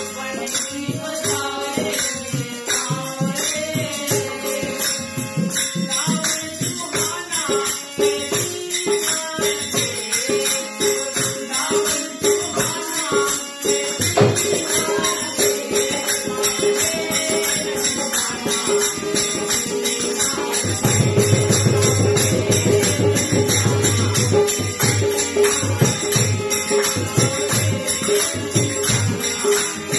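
Live devotional bhajan music: a harmonium melody with drum and jingling hand percussion. The drumming grows heavier about two-thirds of the way through.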